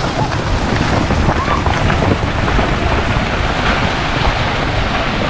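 Steady, loud rushing noise with a heavy low rumble: wind buffeting the microphone outdoors.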